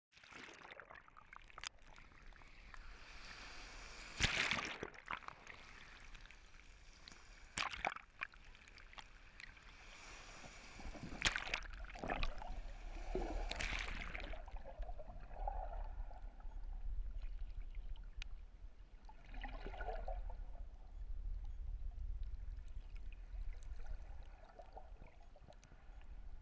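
Shallow surf washing over a camera at the water line: sloshing with a few sharp knocks, then a steady, muffled low rumble of the churning surf heard from under the water.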